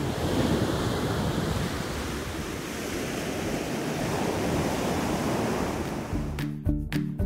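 Ocean surf breaking and washing up on a sandy beach, a steady rushing wash of waves. Background music comes back in about six seconds in.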